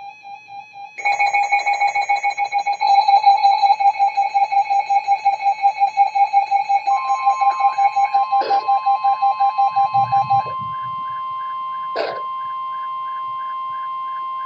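Electronic emergency alert tones. A rapidly pulsing beep is joined partway through by a steady tone. The beeping cuts off about two-thirds of the way in, leaving the steady tone with a quick repeating warble above it. Two sharp clicks fall in the second half.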